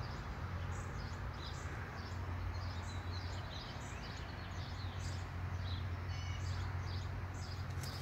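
Outdoor ambience: small birds chirping in short, scattered calls over a steady low hum and an even background hiss.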